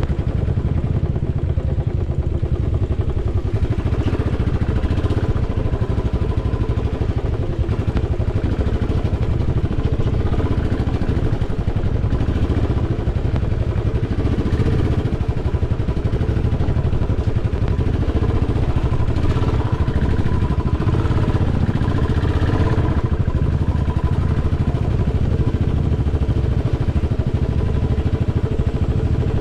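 Royal Enfield motorcycle engine running steadily under way, with some faint rattling now and then.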